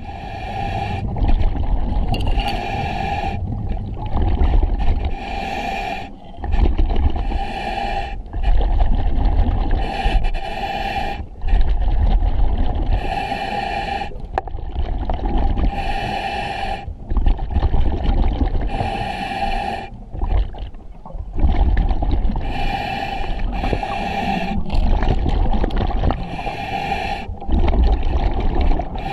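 A scuba diver breathing through the demand regulator of an EXO-26 full-face mask: the hiss of each inhalation alternates with the low bubbling of each exhalation, a breath every few seconds.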